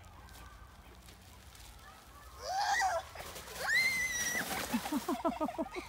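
A young girl's shout, then a long high squeal as she slides down a snowy slope on a makeshift sled, with a rushing scrape of the sled on the snow, ending in a quick run of laughter.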